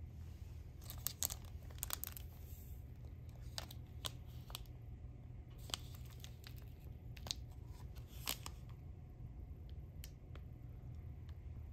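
Foil and plastic drink sachets crinkling as they are picked up and handled: short rustles and clicks scattered through the first eight seconds or so, over a low steady hum.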